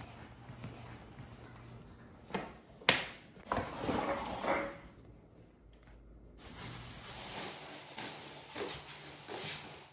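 A black plastic trash bag being prodded with a stick across a tile floor: a few sharp knocks, the loudest about three seconds in, then about a second of plastic rustling and scraping. Softer bumps follow near the end.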